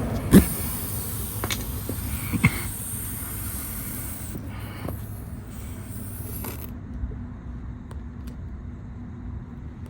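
A few short knocks and handling clicks from a tire plug insertion tool being forced into a tire's tread. The loudest knock comes about half a second in and another about two and a half seconds in, over a steady low background rumble.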